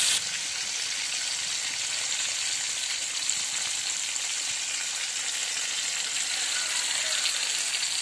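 Spice-marinated chicken pieces deep-frying in hot oil, a steady bubbling sizzle.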